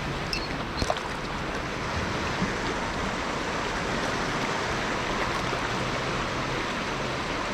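Steady rush of a fast, high-flowing river, with a few light clicks in the first second.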